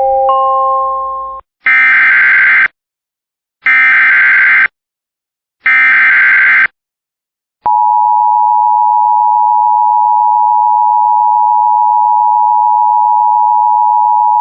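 A short rising chime dies away, then three one-second bursts of harsh, buzzing Emergency Alert System SAME header data tones about two seconds apart. About seven and a half seconds in, the steady two-tone EAS attention signal starts and holds unbroken.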